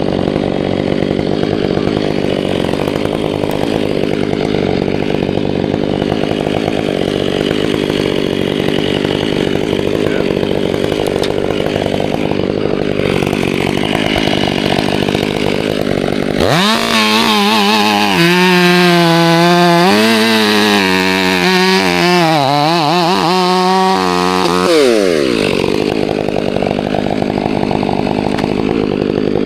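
Chainsaw running steadily, then about halfway through revved up to full throttle for around eight seconds, its pitch wavering, before dropping back to a lower speed.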